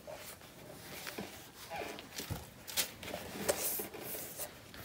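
Handling noise from a pair of black leather loafers being turned over in the hands: scattered soft rustles of the packing tissue stuffed inside them, and a few light taps and brushes against the leather.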